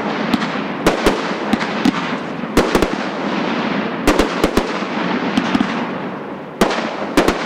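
Fireworks going off: a rapid run of sharp bangs over continuous crackling. The crackle eases slightly before a fresh cluster of bangs near the end.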